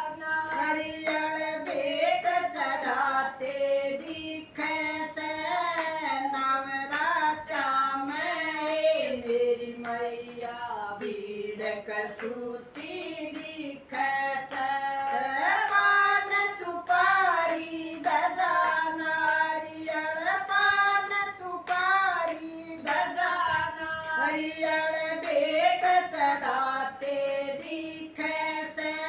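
A small group of women singing a Haryanvi devotional bhajan to the mother goddess together in a call-and-response manner, with hand claps keeping the beat.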